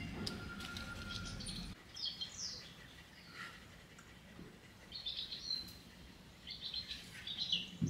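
Small birds chirping in short, scattered calls over a faint outdoor background. A low steady rumble cuts off suddenly about two seconds in.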